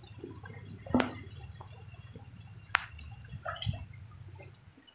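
Water dripping: a few sharp drip-like clicks, the loudest about a second in and another near three seconds, over a faint steady background.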